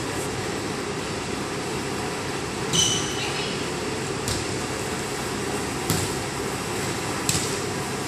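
A volleyball being passed back and forth, heard as four sharp hits on the ball about a second and a half apart, echoing in a large gym. The first hit, about three seconds in, is the loudest. A steady background rush runs under the hits.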